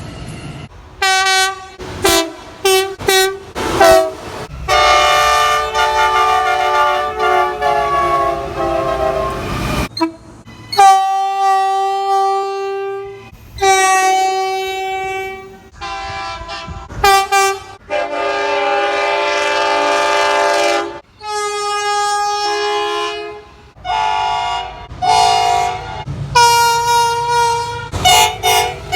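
Train horns sounding one after another: a few short toots followed by several longer blasts, each a chord of several notes, cutting abruptly from one horn to another of a different pitch.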